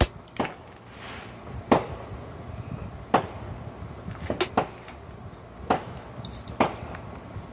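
Pressure flaking a Cherry Quartz glass slab with a long-handled, metal-tipped pressure flaker: sharp snaps as flakes pop off the edge, about seven of them at uneven intervals, two in quick succession just past the middle.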